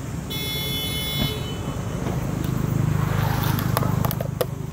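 Motor vehicle engine running steadily with a low rumble that grows louder about three seconds in, as if passing close by. A brief high-pitched ringing tone sounds near the start.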